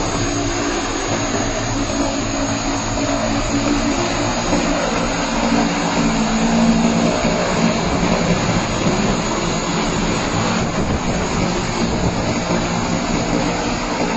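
Many rotors of a two-seat crewed multirotor drone running at full lift as it takes off and hovers: a loud, steady buzzing drone with low hums that waver slightly in pitch.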